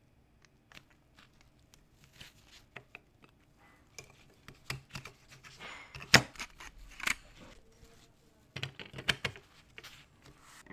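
Small clicks, taps and rubbing of a diecast model car's metal body and plastic parts being handled and pressed together by gloved fingers. There are two busy spells of clicking, with the sharpest click about six seconds in.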